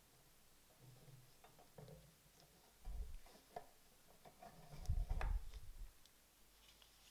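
Soft clicks and taps of small objects being handled, with a dull bump about three seconds in and a louder cluster of bumps and clicks about five seconds in.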